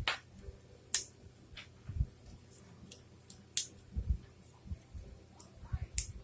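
Plastic Lego pieces being handled and snapped together: a series of sharp clicks about a second apart, with softer knocks and low thuds between them.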